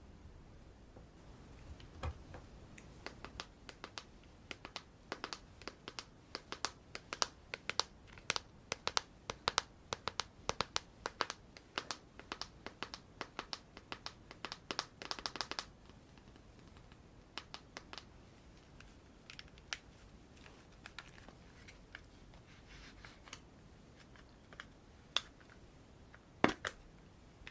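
Close-miked makeup tools and containers handled, giving a run of rapid small clicks, taps and scratches that is dense for about the first half and sparser after, with one sharper click near the end.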